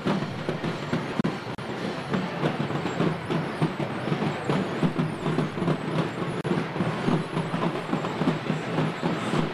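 A vehicle engine running as a parade float moves along the street, with irregular rattling and knocking.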